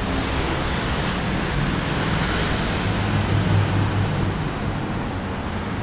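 Steady city street noise of road traffic, with a low engine hum that grows stronger about three seconds in.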